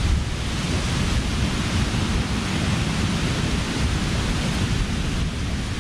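Wind buffeting the microphone: an unsteady low rumble under a steady rushing hiss.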